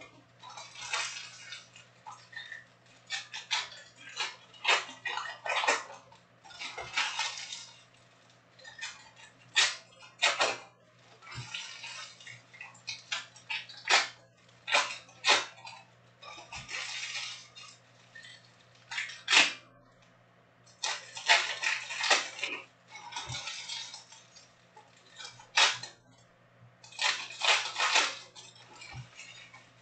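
Stiff Topps Chrome trading cards being flipped through and sorted by hand, giving a string of sharp clicks and snaps. Between them come short bursts of crinkling and rustling from the foil pack wrappers.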